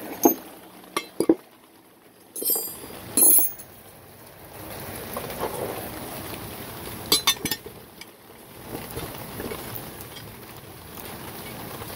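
Metal hand tools, sockets and wrenches, clinking together as they are picked up and sorted through. Single sharp clinks come near the start, a loud ringing clank about three seconds in, and a quick cluster of clinks about seven seconds in.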